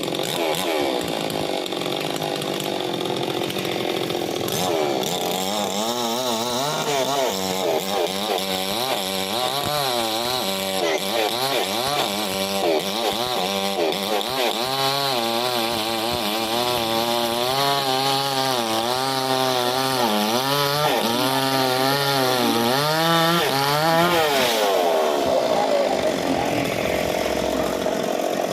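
Chainsaw running and cutting wood, its engine pitch rising and falling repeatedly under load for most of the time, then settling steadier near the end.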